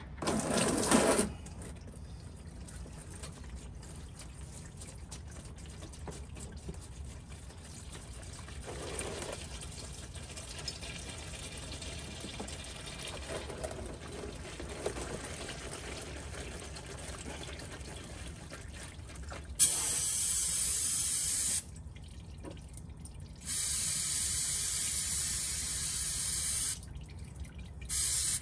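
Used motor oil from a 2007 Ford Crown Victoria's oil pan gushing out as the drain plug is pulled, then running in a steady stream into a plastic drain pan. Near the end an aerosol can of brake cleaner is sprayed in three loud hissing bursts, the first two a couple of seconds each, the last brief.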